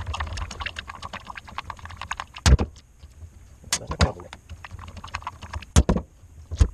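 A screwdriver backs a screw out of a plastic washing machine drain pump housing, making a quick run of small clicks. Then come four sharp knocks as the pump and screwdriver are handled and set down on the washer's top.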